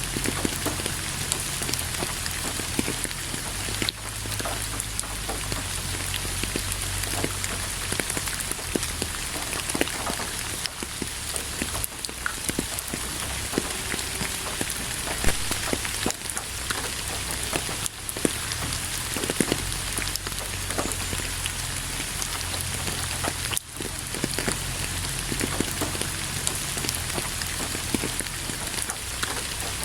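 Steady rain falling on a surface, a dense even hiss with many separate drops pattering through it and a low rumble underneath. The level dips briefly a few times.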